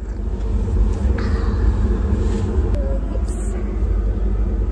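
Steady low rumble of a motor vehicle, with faint voices now and then.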